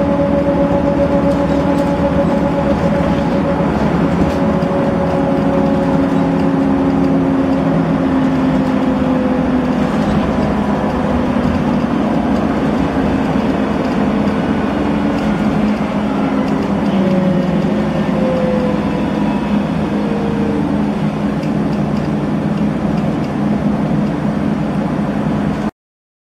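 Volvo B7RLE bus running on the road, heard from inside the saloon: a steady engine and road noise with a whine from the engine and ZF automatic gearbox that slides slowly down in pitch twice. The sound cuts off suddenly near the end.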